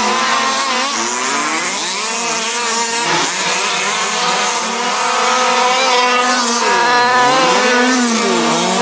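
Several fifth-scale petrol RC cars racing, their small two-stroke engines running together in a high, buzzing drone. Individual engines repeatedly drop in pitch and climb again as they come off and back on the throttle through corners.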